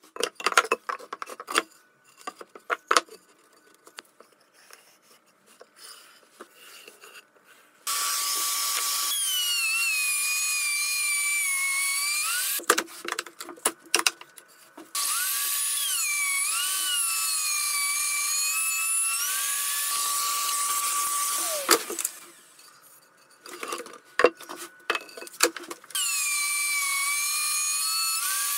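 Handheld plunge router running in three spells of several seconds each, a high whine that rises and falls in pitch as it cuts a channel in the wood. Between the spells, knocks and clatter of timber pieces being handled and clamped on a workbench.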